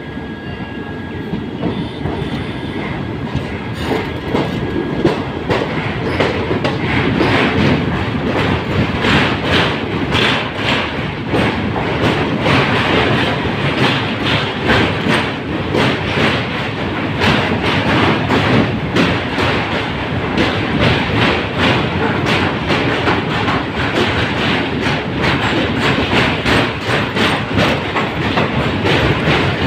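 Passenger train's wheels clattering over the rail joints of a steel truss bridge, heard from an open coach door: a steady run of rhythmic clicks over a rumbling rush that grows louder over the first several seconds.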